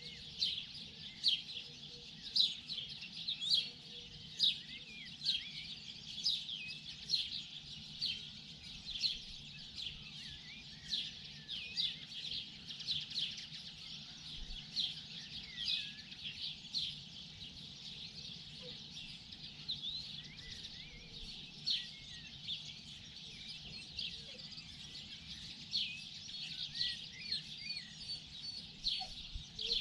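Chorus of small songbirds chirping and singing, many short, sharp, high notes a second overlapping, over a faint steady low hum.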